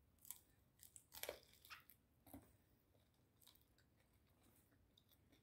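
Faint chewing close to the microphone: scattered short mouth clicks and smacks, most of them in the first two and a half seconds, then only a few soft ones.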